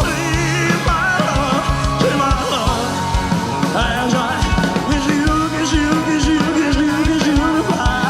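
Live band playing a passage of a rock ballad between the lead vocal lines: drums, bass and keyboards under a melody line that bends in pitch.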